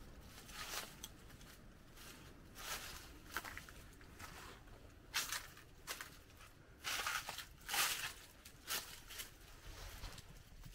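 Footsteps crunching over dry leaf litter and debris, about one irregular step a second, loudest around the middle.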